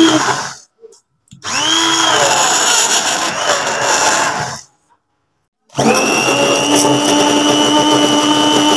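Stainless-steel stick (immersion) hand blender whipping raw eggs to a froth in a glass bowl. The motor whine runs in three stretches: it cuts out under a second in, runs again from about one and a half to four and a half seconds, then starts again about six seconds in and runs steadily.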